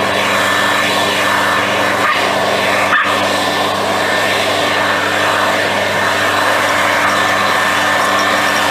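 Gas backpack leaf blower running steadily at a constant pitch, with a dog barking over it.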